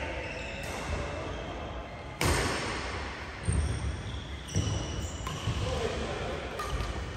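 Badminton rally: rackets striking the shuttlecock in sharp cracks, the loudest about two seconds in and again around three and a half and four and a half seconds in, with brief high squeaks of shoes on the court mat.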